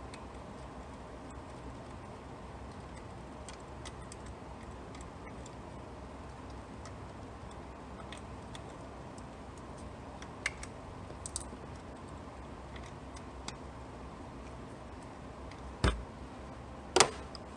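Light metallic ticks and clicks of a small hex driver on the M6 bolts of a transmission thermostat housing as they are run in, over a low steady hum, with two sharper clacks near the end.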